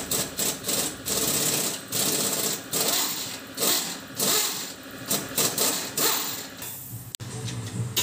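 Pneumatic impact wrench rattling in repeated bursts, some short and some over a second long, as it undoes bolts on a car's front suspension to remove the shock absorber.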